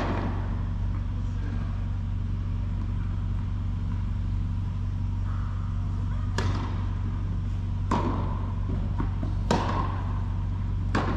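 Tennis ball struck by rackets in a rally: sharp pops, one right at the start and then four about a second and a half apart from about six seconds in, each echoing in a large indoor hall over a steady low hum.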